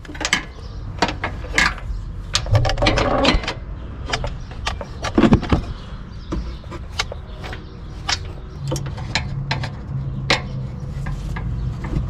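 Hand ratchet clicking in irregular bursts, with metal knocks, as it is worked on a seized engine-mount bolt to break it loose.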